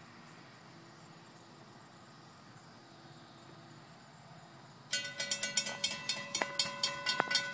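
Faint insects chirring, then about five seconds in a railroad grade-crossing bell starts ringing, about three strokes a second. It is the crossing warning activating for an approaching train.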